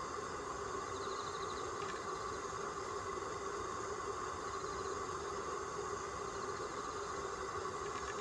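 Steady background hum and hiss, like a distant engine or machinery, with faint brief high ticking trills twice.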